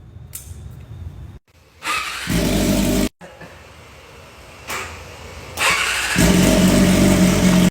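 Engine running loudly in two stretches of about a second and two seconds, each cut off abruptly.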